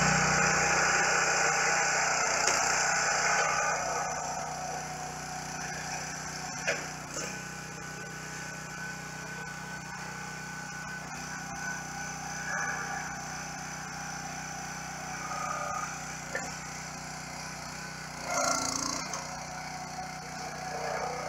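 Gas-engine hydraulic log splitter running steadily, louder for the first few seconds and then settling lower. Later there are a few short sharp cracks and knocks of wood being split and handled, and one brief louder burst near the end.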